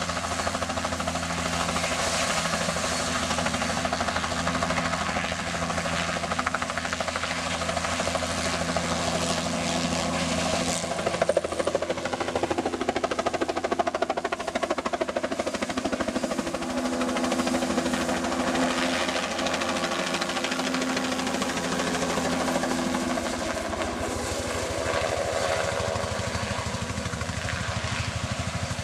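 Helicopter running close by: the rapid chop of its rotor blades over steady engine tones. The engine tones shift in pitch about a third of the way in, and the sound swells a little.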